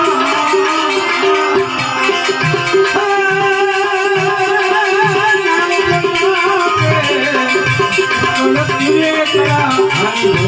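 Devotional bhajan music from a folk ensemble: a sustained, wavering melody line over regular hand-drum beats and a steady jingling rhythm of small cymbals or rattles.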